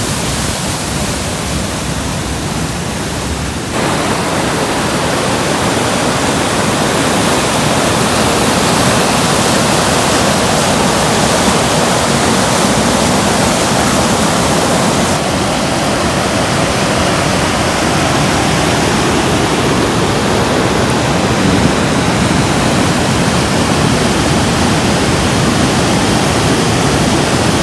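Amnicon River waterfalls running fast and high: a loud, steady rush of water, stepping up in level about four seconds in and shifting in tone about halfway through.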